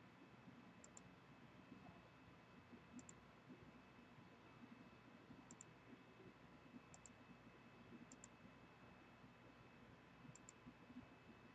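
Near silence: faint room tone with soft computer mouse clicks, six double clicks spread a second or two apart.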